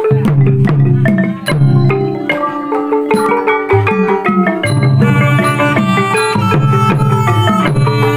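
Cambodian pinpeat ensemble playing: a fast run of struck notes on roneat xylophones and gong circles over drums. The drums come in at the start and the ensemble grows fuller about five seconds in.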